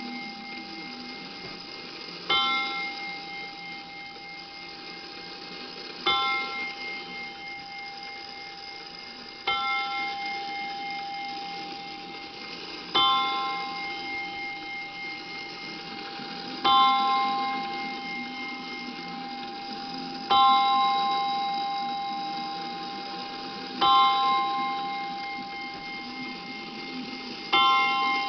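Seth Thomas Sonora Chime clock striking a single bell, one slow stroke about every three and a half seconds, eight strokes in all, each ringing out before the next.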